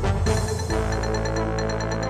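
News programme opening theme music: a quick repeating high figure over held bass notes, with no voice over it.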